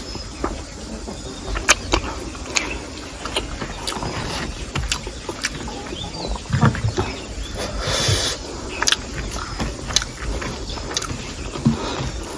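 Close-miked mukbang eating sounds: chewing fatty pork, with many scattered sharp mouth clicks and a brief louder hiss about eight seconds in.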